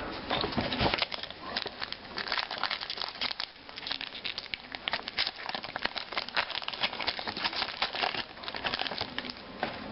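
Foil booster pack wrapper of a Magic: The Gathering card pack being torn open and crinkled by hand: a continuous run of irregular sharp crackles and rustles.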